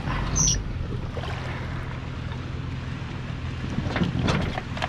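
Small waves washing in shallow water and wind on the microphone, over a steady low engine hum at idle.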